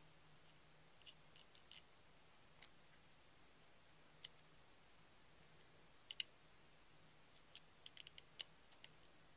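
Faint, scattered clicks of small metal and plastic parts as an ambidextrous safety is worked into the lower frame of a KWA M1911 airsoft pistol, over near-silent room tone. The clicks come singly at first, then as a quick pair and a short cluster in the latter half.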